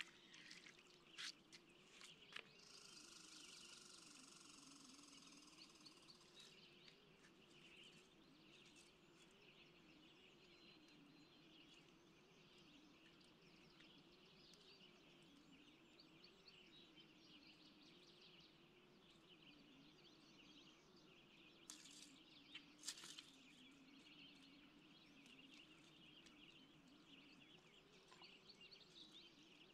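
Very quiet lakeside ambience: faint birds chirping over a low wavering hum. A brief high buzzing tone comes a few seconds in, and a few soft clicks come near the start and twice more past the middle.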